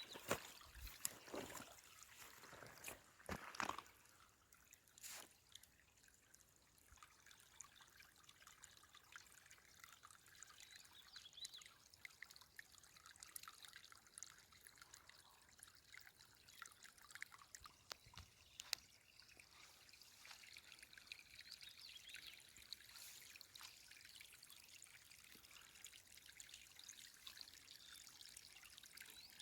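Small clear stream trickling and gurgling faintly, with a few sharp knocks in the first few seconds.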